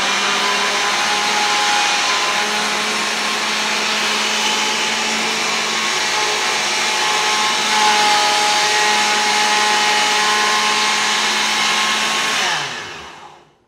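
Oster blender fitted with a food-processor bowl, running at a steady speed as it purées grated potato, pomegranate seeds and lemon juice with a little water into a paste. The motor winds down and stops near the end.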